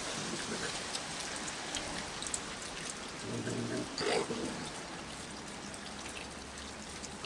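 Steady heavy rain, with a brief faint sound about four seconds in.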